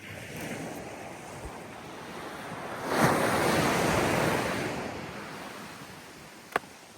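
Sea wave washing in: a rushing swell that surges sharply about three seconds in and fades away over the next two seconds. A single sharp click near the end.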